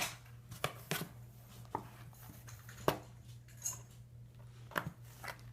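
Kittens playing and pouncing: irregular light taps, scratches and thumps of paws and claws on the hard floor of their tub and box, about half a dozen in a few seconds.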